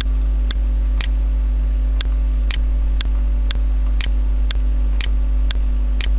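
Steady, even ticking, about two ticks a second, over a constant low electrical hum.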